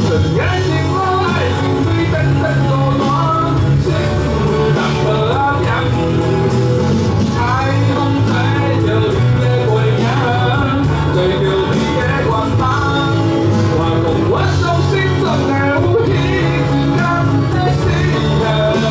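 Live rock band playing a song: a man sings the lead melody over electric guitars, electric bass and an electronic drum kit.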